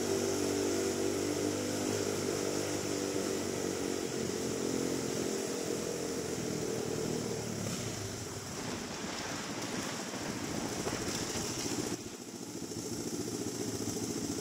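Motorcycle engine running steadily as the bike circles the wall of death, with a steady hiss over it; the engine note grows less clear from about halfway through and drops back about twelve seconds in.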